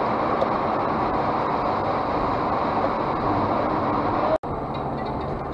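Steady road and engine noise inside a car's cabin at highway speed. It cuts out abruptly about four seconds in, then resumes a little quieter with a low hum.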